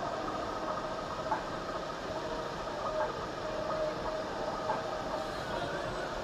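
Steady rush of sea water along a moving cruise ship's hull, under a faint mechanical hum from the ship, with a short clack about every one and a half to two seconds.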